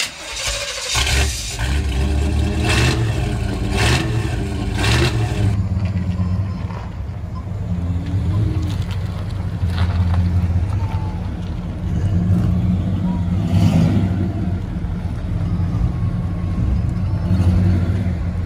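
Pickup truck engine revving hard and held at high revs during a burnout, a steady low drone throughout, with several sharp bursts in the first five seconds.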